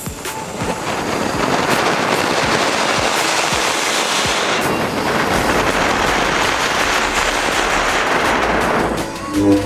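An anar (flower-pot fountain firework) spraying sparks with a steady, loud crackling hiss, starting about half a second in and dying away near the end.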